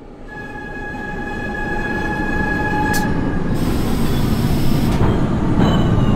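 New York City subway train approaching and growing steadily louder. A steady high-pitched squeal runs through the first half, with a sharp click about halfway, then a heavy rumble builds as the train comes close.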